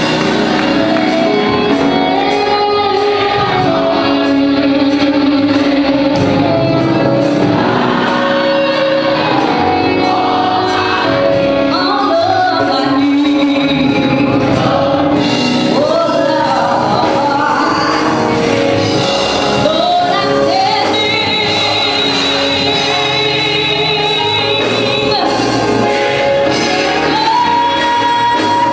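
Gospel mass choir singing live, with a female lead singer on microphone over the full choir. A steady beat runs under the singing and drops out about halfway through.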